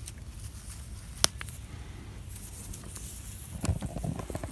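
Wild mint being picked by hand: a single sharp snap of a stem about a second in, then a cluster of leafy rustles and small crackles near the end, over a low steady rumble.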